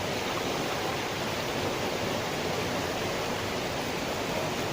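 Steady rushing of flowing water, like a stream or river running.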